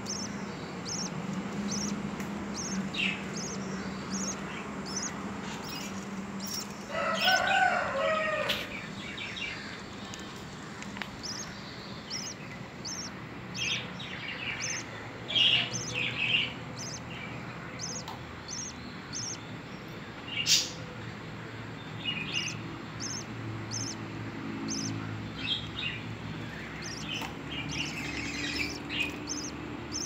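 Budgerigars in a nest box: a steady run of short, high peeps repeating about once or twice a second, typical of newly hatched chicks begging to be fed, with scattered louder adult chirps. A louder call comes about seven seconds in.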